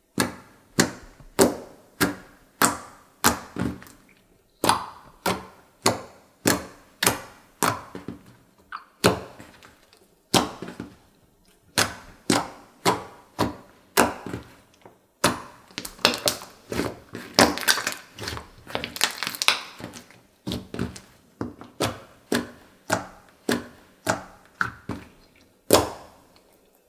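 Slime being kneaded and pressed, trapped air popping out in sharp clicks about two or three a second, with a denser run of crackling a little past halfway.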